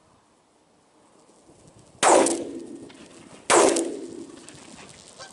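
Two shotgun shots about a second and a half apart, each with a long fading echo, fired at geese flying in over decoys.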